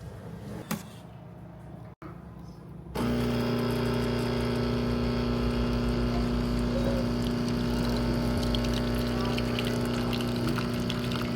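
Espresso machine's pump humming steadily as it pulls a double shot of espresso, switching on suddenly about three seconds in.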